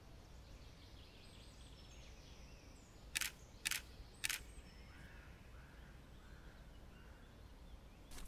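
DSLR camera shutter firing three single frames about half a second apart, sharp mechanical clicks, over a quiet outdoor background with faint bird chirps.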